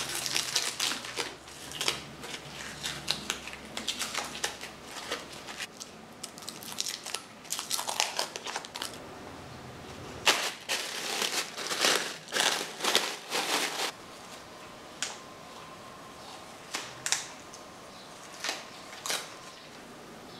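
Masking tape being peeled off freshly painted engine casings and crumpled by gloved hands: a string of short tearing and crinkling rustles that thin out to occasional crackles in the last few seconds.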